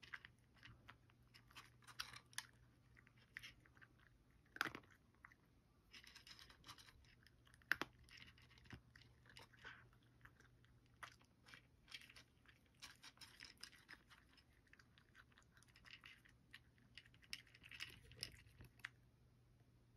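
Cat eating dry kibble, faint irregular crunches as it chews, with a couple of louder crunches about five and eight seconds in.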